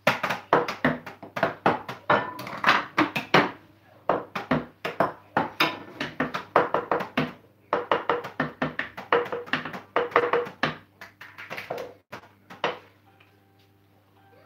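Improvised drumming on kitchen things: fast, rhythmic taps and knocks of utensils on a plastic tub and other countertop items, in several quick runs with short breaks, stopping near the end.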